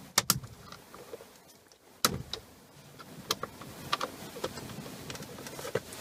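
Irregular clicks and light knocks of a screwdriver and gloved hands working behind a steering wheel, prying the airbag's wire retaining spring off its tangs. The sharpest clicks come right at the start and about two seconds in.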